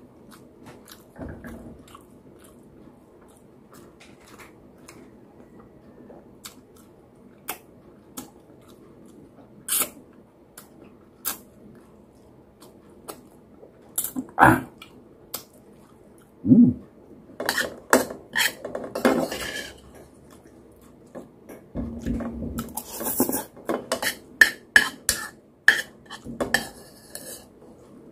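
A metal spoon clinking and scraping against a ceramic bowl and plates, with chewing in between. The clinks are scattered at first and come in quicker runs in the second half.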